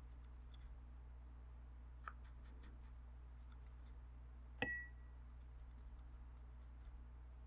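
Paintbrush working watercolour on a plastic palette, with a few faint soft ticks and scrapes, and one sharp clink that rings briefly about four and a half seconds in. A steady low hum runs underneath.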